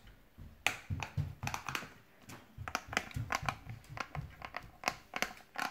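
Handling noise: irregular crinkling, rustling and sharp clicks as a small plastic object and the phone are fiddled with close to the microphone.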